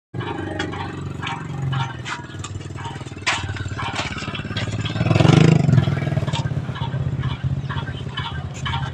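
A motor running steadily, with many sharp knocks and clatter over it and a louder surge about five seconds in.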